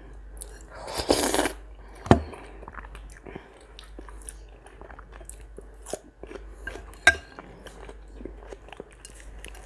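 Close-up eating sounds of cabbage soup: a noisy slurp from the spoon about a second in, then chewing, with a metal spoon clinking against the china bowl twice.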